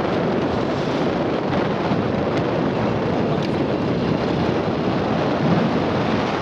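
Steady wind rush over the microphone of a moving vehicle, with the vehicle's running noise underneath.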